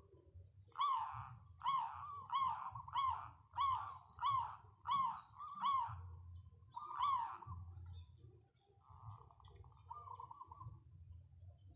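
Zebra dove (perkutut) cooing: a run of about nine short, arched coo notes, each under a second apart, followed by a few softer, trilled coos near the end.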